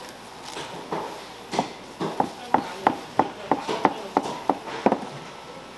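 Kitchen knife chopping on a cutting board, slicing boiled pork: a few scattered strokes, then a steady run of about three strokes a second from about two seconds in.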